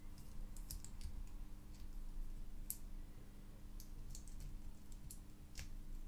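Faint, irregular small clicks and ticks as the metal shell of a DIN plug is handled and worked back onto the plug by hand.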